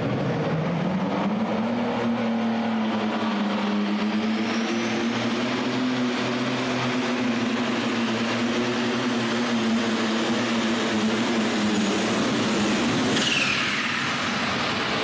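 Light limited super stock pulling tractor's turbocharged diesel engine running at full power under load. Its note climbs in the first second and then holds steady. About two seconds before the end the engine note drops away as the pull ends, with a high whistle falling steeply in pitch as the turbo winds down.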